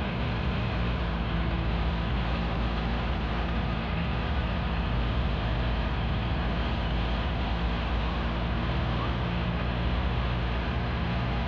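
Steady engine drone and wind and road rush heard from a moving road vehicle, with a constant low hum and no change in pace.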